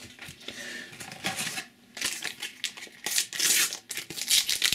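A paper sticker packet being handled and torn open, its wrapper crinkling in several short rustling bursts that grow stronger in the second half.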